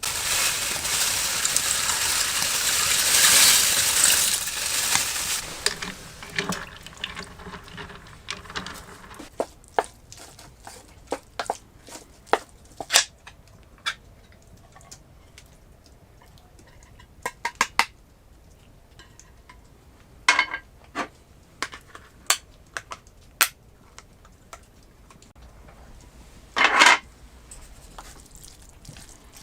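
Camp cooking: a loud hiss for the first five or six seconds, then scattered clinks and taps of metal cookware and utensils.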